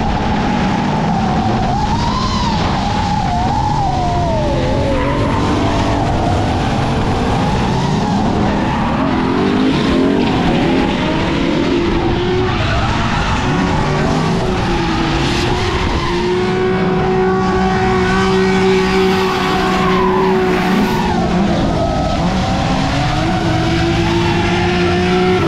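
Several drift cars in a tandem line, their engines revving up and down over one another while the tires squeal and skid through the slide.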